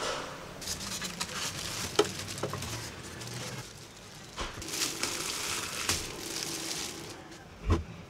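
Clear plastic packaging crinkling and rustling as a coffee grinder is handled and unwrapped, with sharp clicks of hard plastic parts knocking. A single dull thump comes near the end.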